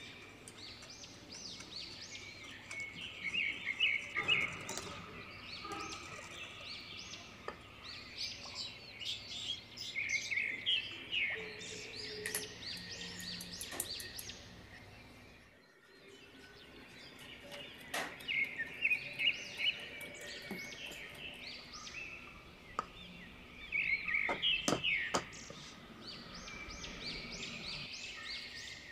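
Birds chirping and singing in quick trills over a low background hiss, with a few sharp clicks late on.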